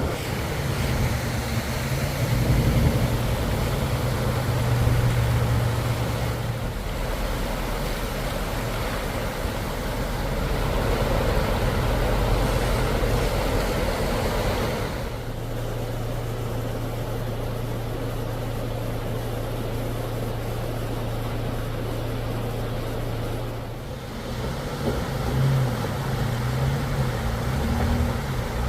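A vehicle engine runs steadily as a low hum under a broad rushing noise. The sound changes abruptly three times.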